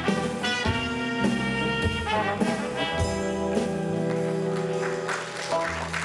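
Instrumental music with long held chords that change every second or so.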